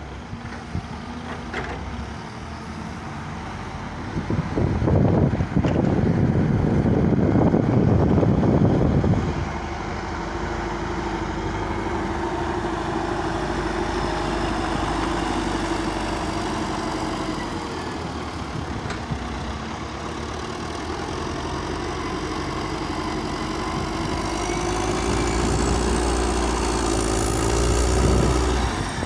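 Heavy diesel engine of a Caterpillar 950 wheel loader running, loud and rough for a stretch about four to nine seconds in, then settling to a steady hum. Near the end it rises in pitch and loudness, with a faint high whine climbing over it.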